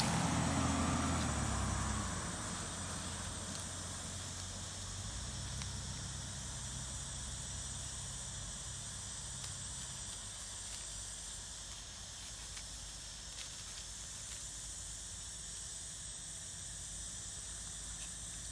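Outdoor woodland ambience: a steady high insect hum, with a low rumble that fades out about two seconds in.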